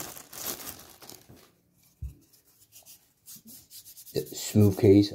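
A thin clear plastic bag crinkling and rustling as it is worked off a small plastic earbud case, then a single brief low thud about two seconds in.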